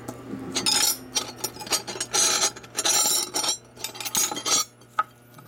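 Steel hand files scraping and clinking against one another as they are shuffled through in a metal tool-chest drawer, in a busy run of rasping slides and clinks that dies down near the end.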